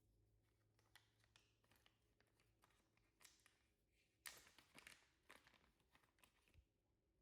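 Faint rustling and light clicks of small parts and plastic packaging being handled, with a sharper click about four seconds in.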